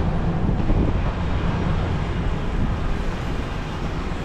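A vehicle driving slowly, with a steady low engine and road rumble.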